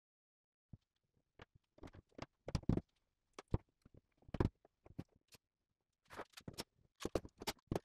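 Irregular light knocks and clacks of wooden box parts being fitted together at their finger joints, with bar clamps set down and placed on the case near the end.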